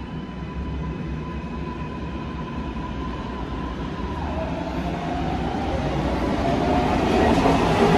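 MARTA rapid-transit train approaching along the platform and growing steadily louder. A high steady whine drops in pitch about four seconds in, then slowly climbs as the rumble and rail noise build.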